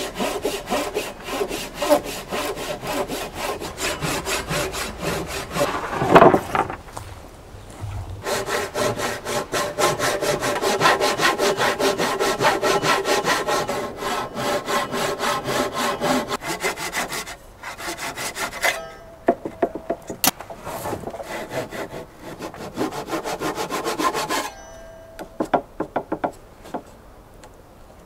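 Japanese handsaw cutting an angled cut through a square wooden beam by hand, in quick, even strokes. The sawing breaks off briefly about two-thirds through, resumes, then stops near the end, followed by a few light taps.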